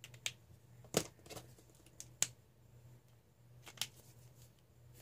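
Plastic marker caps and barrels being handled: about half a dozen scattered sharp clicks as caps are snapped on and off and markers are set down and picked up, the loudest about a second in.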